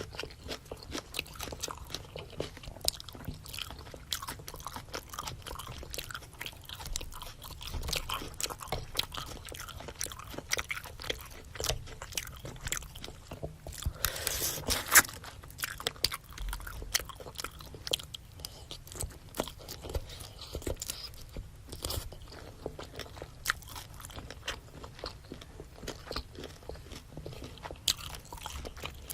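Close-miked eating of a spicy seafood boil: continuous biting and chewing with many small wet mouth clicks, and a louder, noisier burst of about a second about halfway through.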